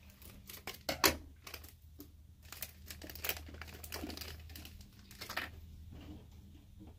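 Plastic toy blind bag being cut and torn open and crinkled in the hands, a run of irregular crackles with a sharp snap about a second in.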